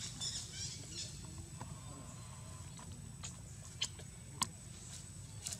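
Faint high squeaks in the first second, then a few sharp clicks, the loudest two about four seconds in, over a steady low rumble, among macaques sitting in dry leaf litter.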